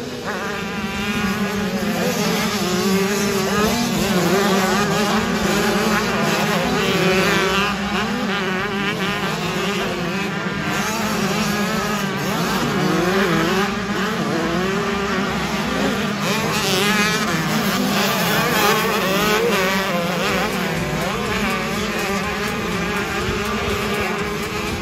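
Small two-stroke motocross bike engines revving, their pitch rising and falling over and over, with a steady lower drone underneath.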